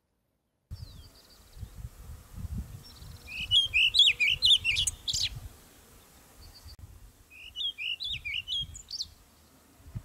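Chiguanco thrush singing: two phrases of quick, varied, warbled notes, the first about three and a half seconds in and a second, softer one near eight seconds, over a low, irregular rumble.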